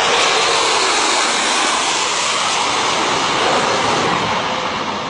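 Jet engine noise from a low-flying space-shuttle-shaped aircraft coming in to land: a loud, steady rush that eases slightly near the end.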